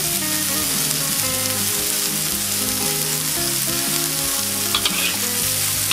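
Bean sprouts, tofu and shiitake mushrooms sizzling steadily as they stir-fry in a wok, with a few sharp clicks of the metal spatula near the end. Soft background music with a stepping melody plays underneath.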